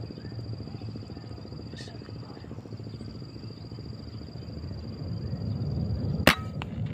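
A PCP air rifle fired once, a sharp crack about six seconds in, over a steady low rumble and a constant high-pitched tone.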